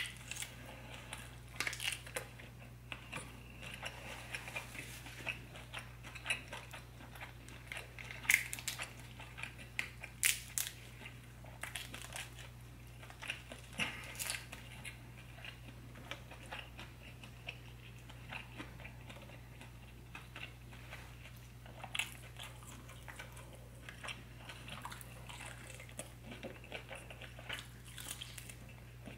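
Close-miked chewing of sauce-coated boiled seafood, with many small wet clicks from the mouth and from fingers pulling the meat apart and dipping it in sauce. A low steady hum runs underneath.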